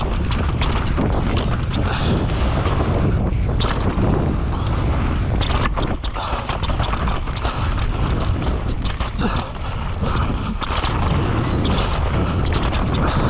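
Mountain bike descending a rocky dirt trail, heard from a camera on the bike or rider: a constant low rumble of wind and tyres, broken by frequent sharp knocks and rattles as the bike hits rocks and roots.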